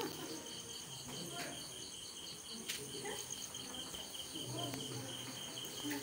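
Crickets chirping steadily: an even run of high chirps, about four or five a second, with no pause.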